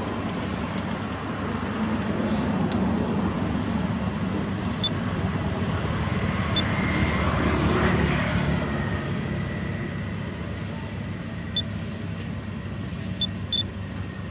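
A road vehicle passing by: its noise swells to a peak about eight seconds in and then fades away. A few short, high chirps come near the end.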